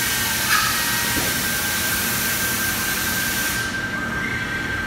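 Industrial robot's drill head end-of-arm tool running through a drill-and-countersink cycle: a loud, steady hiss with a steady high whine over it and a click about half a second in. The hiss cuts off suddenly near the end while the whine carries on.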